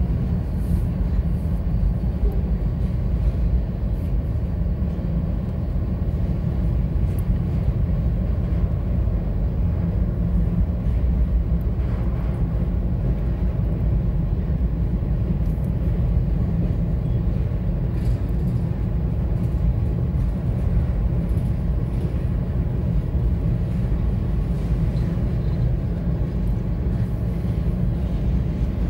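Freight cars of a CSX mixed freight train rolling steadily past a grade crossing: a continuous low rumble of steel wheels on rail, heard from inside a stopped car.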